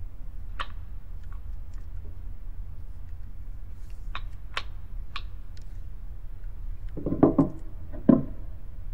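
Small objects being handled: a few sparse light clicks, then a cluster of louder knocks about seven seconds in and one more knock about a second later, over a low steady hum.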